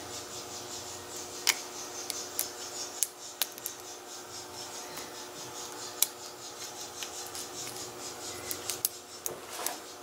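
Steel hook pick working the spring-loaded pins of an Iseo padlock's five-pin cylinder under tension: light scraping with scattered small metallic clicks, several of them bunched near the end. This is single-pin picking in a lock whose pins are all security pins.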